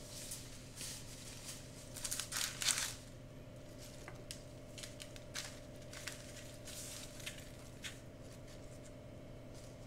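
Fresh thyme sprigs and parchment paper rustling and crackling faintly as hands arrange the herbs around a lamb shoulder. There is a short burst of louder rustling about two seconds in, then scattered light crackles, over a steady low hum.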